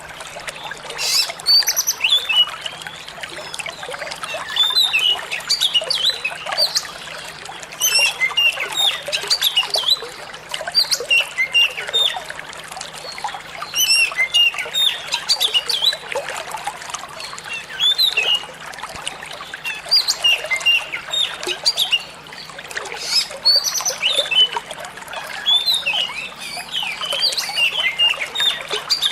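Oriental magpie-robin singing in busy bursts of quick, varied chirps and whistled notes, over the steady trickle of running water.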